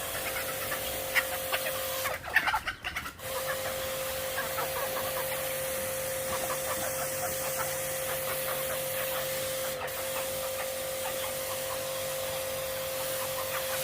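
A water spray gun washing out a chicken coop runs with a steady hiss and hum that starts suddenly, cuts briefly about two seconds in, then carries on. Chickens cluck over it.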